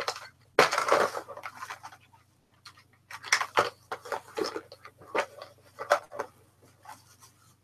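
Irregular clicks, taps and rustles of small tools and packets being handled and rummaged through, with a short rustle about a second in.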